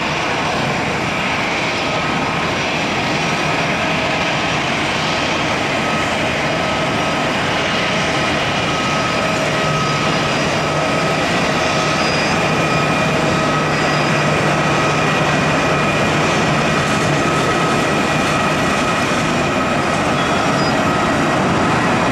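Boeing 787-8 with Rolls-Royce Trent 1000 engines at takeoff thrust on its takeoff roll: a steady jet roar with a high, even whine, slowly growing louder.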